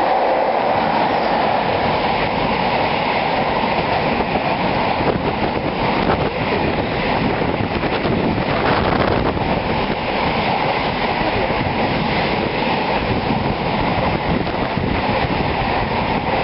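Container freight train passing through at speed close to the platform: a steady rush of wheels on rail as the wagons go by.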